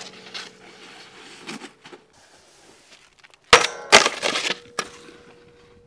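A snowboard lands on a steel stair handrail about three and a half seconds in with two sharp metallic hits and scrapes along it. The rail is left ringing with a steady tone.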